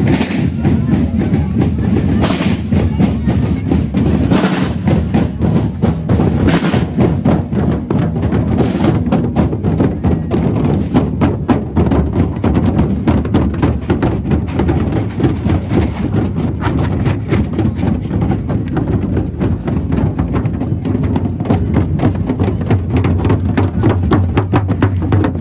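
Procession band drums playing a fast, steady beat of many strikes, with a loud crash about every two seconds during the first nine seconds.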